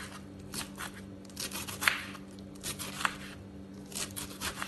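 Kitchen knife slicing a cabbage wedge into fine shreds on a wooden chopping board: crisp crunching cuts, each ending in a tap of the blade on the board, coming irregularly about two or three times a second. A steady low hum runs underneath.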